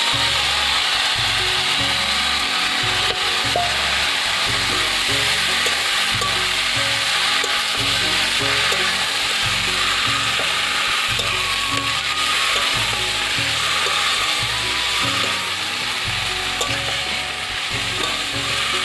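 Chopped water lily (shapla) stems frying in hot oil in a karai, a loud steady sizzle, while a metal spatula stirs them through the pan.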